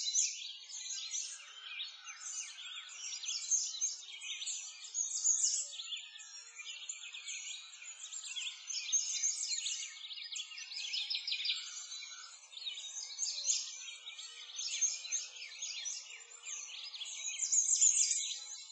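A dense chorus of songbirds, many short chirps and trills overlapping, swelling and fading every second or two.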